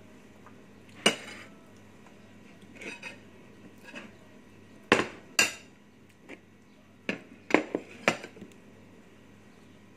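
Glass plates and a metal spoon clinking and clattering as the dishes on the table are moved and stacked. There is one sharp knock about a second in, then a run of clatters from about five to eight seconds in.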